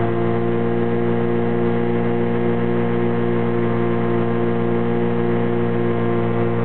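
SeaRey amphibian's pusher engine and propeller running steadily in flight: a loud, even drone that holds one pitch, heard from inside the cockpit.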